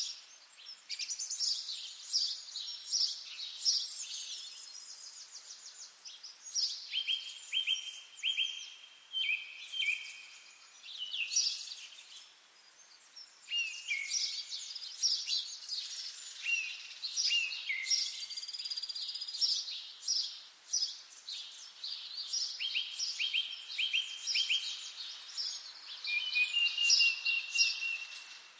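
Songbirds singing: overlapping phrases of rapid chirps, trills and runs of repeated notes, one after another with only short pauses between them.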